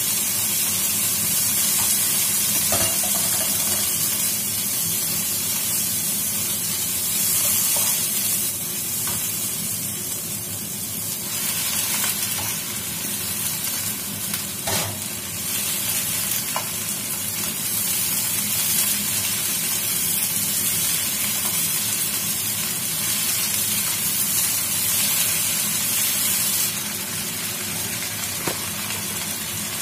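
Vegetables sizzling in a hot wok as they are stir-fried with a wooden spatula, with a steady hiss and a few knocks of the spatula against the pan. The hiss eases a little near the end.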